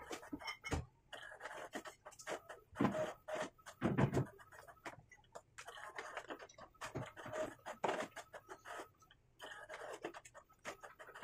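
Wooden slats knocking and clattering as they are handled and fitted into a wooden rack frame: irregular taps and clicks, with heavier thuds a little under a second in, near three seconds and at about four seconds.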